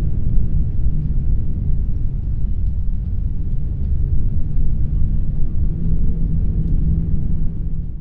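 A loud, steady low rumble with a faint hum running through it, fading out near the end.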